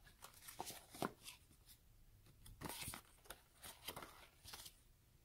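Paper cards and a cardboard box being handled: faint rustling and light taps as printed cards are slid out of the box, the loudest about a second in and again around three seconds in.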